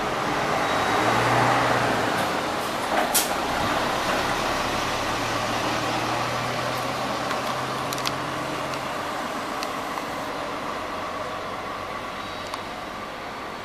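City bus passing close by and pulling away, its diesel engine running with a low hum and its road noise loudest in the first two seconds, then slowly fading. A brief sharp noise comes about three seconds in.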